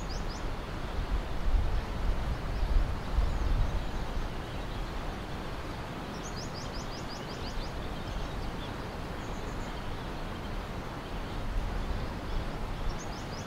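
Steady rushing of the fast-flowing Ganges river, with small birds chirping over it, one giving a quick run of about eight chirps midway.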